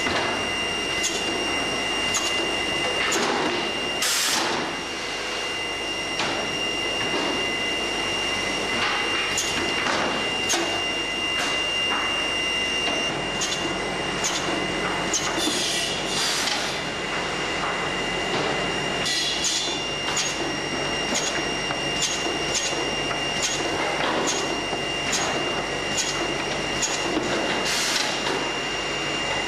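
CNC wood-cutting and sorting line running: a steady machine hum with a constant high whine, broken by regular sharp clicks and short bursts of air hiss from the pneumatic kickers along the sorting conveyor. The clicks come about once a second in the second half.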